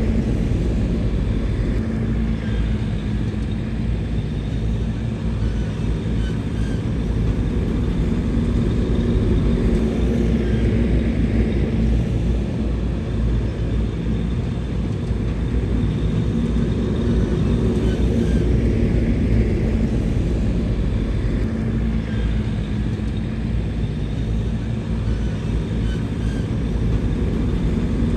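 Heavy earthmoving machine's diesel engine running steadily under work, its pitch dipping slightly a couple of times.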